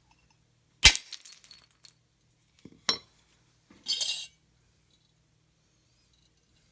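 Hammer blows on a glazed porcelain toilet bowl: a sharp crack about a second in, followed by clinking of broken china shards, then a second, lighter strike near three seconds. A short, high clatter of shards follows about four seconds in.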